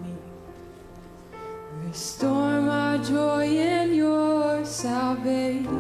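Slow worship song with accompaniment: a quieter passage, then about two seconds in a louder melody with held, wavering notes.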